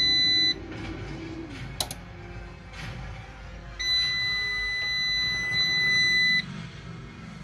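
Inverter alarm buzzer giving long, steady, high-pitched beeps: one ends about half a second in, and another sounds from about four to six and a half seconds. This is a fault warning as the inverter trips its safety cut-out and reboots on the under-voltage batteries. A sharp click comes in between.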